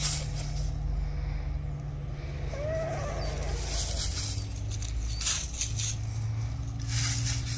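Chickens scratching in dry fallen leaves, with short bursts of leaf rustling as a hen kicks them aside, and one short hen call that rises and falls about three seconds in. A steady low hum runs underneath.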